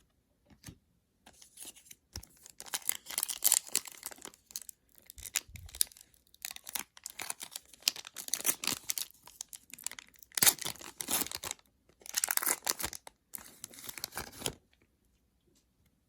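A foil trading-card pack wrapper being torn open and crinkled by hand, in a series of ripping and crackling bursts with short pauses, stopping about a second and a half before the end.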